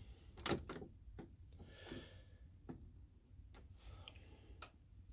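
Faint handling noises: scattered clicks and knocks, with two short spells of soft rustling about two and four seconds in.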